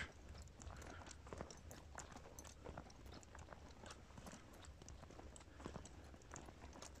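Near silence: a faint low hum with scattered small clicks and crackles at irregular intervals.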